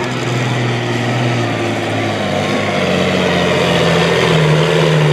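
V12 engine of a Mercedes-Benz pulling truck running at full throttle under load as the truck drags a pulling sled. The engine note climbs a little about halfway through.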